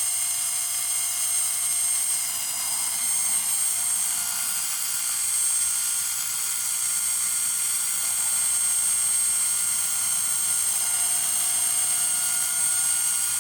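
Central Pneumatic air compressor's electric motor running continuously at steady speed with a high-pitched whine, its cooling fan removed so that it overheats.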